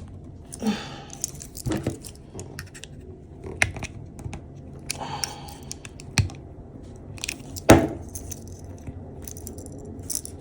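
Small metallic clicks and rattles from a Gerber Armbar Slim Drive multitool being worked by hand as its blade and liner lock are moved. There are scattered light clicks, with one sharper click about three-quarters of the way through.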